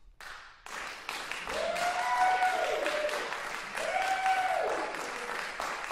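Audience applauding at the end of a clarinet performance, the clapping starting abruptly and filling out within a second. Two long cheering calls ring out over it, the first about one and a half seconds in and the second about four seconds in.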